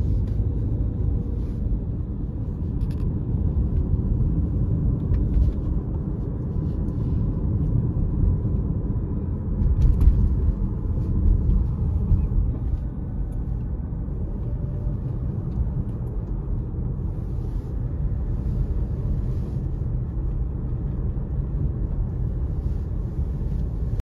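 Steady low road and engine rumble heard from inside a moving car's cabin, with a few faint clicks and a brief louder swell about ten seconds in.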